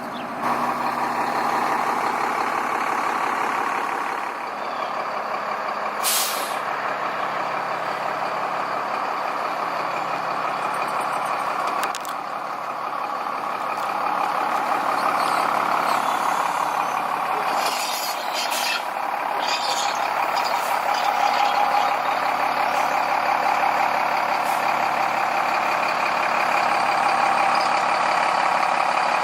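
A motorhome under way: steady engine and road noise, with a couple of short sharp clicks.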